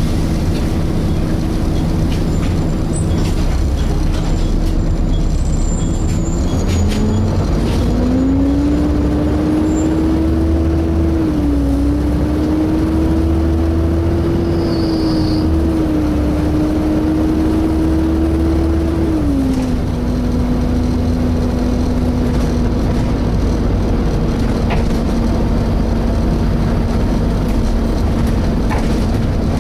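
Volvo B7TL bus heard from on board: the diesel engine running, with the cooling fan's steady whine over it. The whine rises in pitch about a quarter of the way in, holds, then drops to a lower steady tone about two thirds of the way through.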